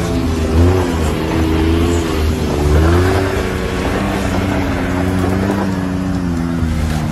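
Engine of a sport side-by-side UTV revving up and down as it drives over dirt, its pitch rising and falling several times.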